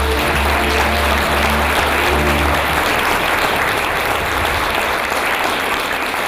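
Audience applauding while a folk string band with violin and bass plays the last bars of a dance. The music stops about two and a half seconds in and the clapping carries on.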